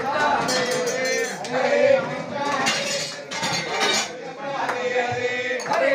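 Plates and serving utensils clinking and clattering among a crowd of diners, over overlapping chatter of many voices.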